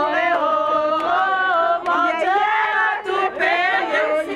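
A group of voices singing together, with long held notes that glide from one pitch to the next.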